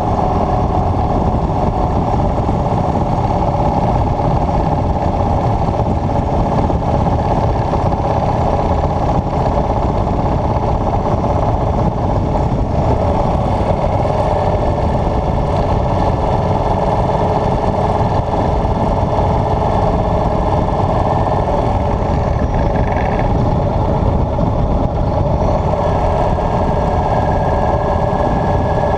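Motorcycle running steadily at cruising speed on the highway, its engine tone under constant rushing wind noise.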